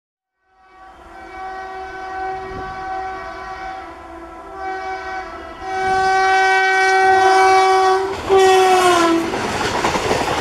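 WAP-4 electric locomotive's air horn sounding in several long blasts as the train approaches, the last blast dropping in pitch as it passes. Then the loud rush and rattle of the coaches going by.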